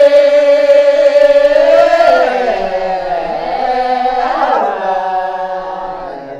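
Lisu folk song sung unaccompanied by several voices, holding long notes together at different pitches. The phrase tapers off near the end.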